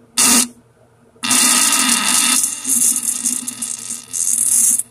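Fart and diarrhea sounds: one short noisy blast, then about a second later a long, loud, noisy one lasting about three and a half seconds.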